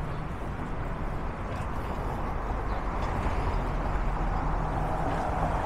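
City street traffic: a steady wash of vehicle noise with a low engine hum, swelling louder in the second half as a vehicle passes.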